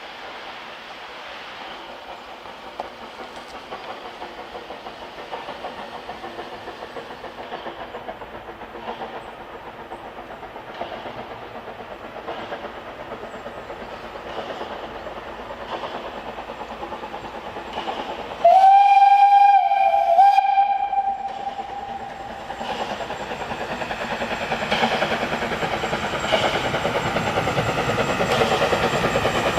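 Henschel steam locomotive of a park railway chuffing in an even rhythm, growing steadily louder. About two-thirds of the way in its whistle sounds one loud, held blast of about two and a half seconds, then the beats of the exhaust and the clatter of the train carry on, louder still.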